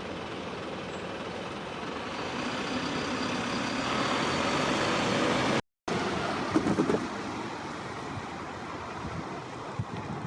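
Road traffic passing: a vehicle's noise builds for a few seconds and breaks off at a cut. Just after, a quick run of four or five thumps follows, then a few lighter knocks near the end.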